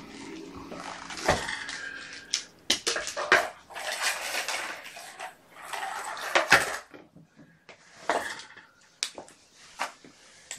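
Household objects being handled and moved during cleaning: a series of clattering knocks and clicks, with rustling and scraping between them.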